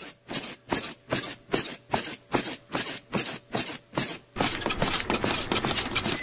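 Rhythmic mechanical chugging sound effect, about three strokes a second, turning into a denser, steady clatter about four seconds in, like a pedal-driven contraption starting up.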